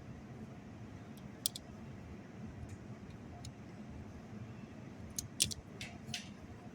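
A few light clicks and taps of small metal hardware being handled, a washer and locking nut on a scissor-sharpener's wheel shaft, once about a second and a half in and several near the end, over a steady low hum.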